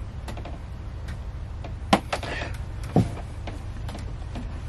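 Handling noises from hands working at the top of a marine diesel's gearbox: small clicks, then two sharp knocks about a second apart with a brief rustle between them, over a steady low hum.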